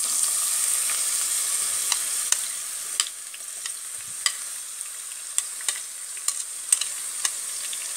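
Crushed shallots sizzling as they drop into hot coconut oil in a nonstick pan. The hiss starts suddenly and slowly eases, with scattered sharp pops and clicks.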